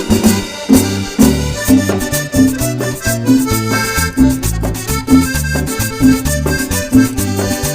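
Instrumental break of a Latin dance tune: an accordion plays the melody over a bouncing bass line and a steady percussion beat.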